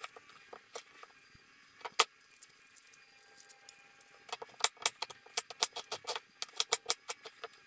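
Chef's knife chopping a red onion on a plastic cutting board: scattered sharp taps at first, then from about halfway a quick, even run of chops, about five a second.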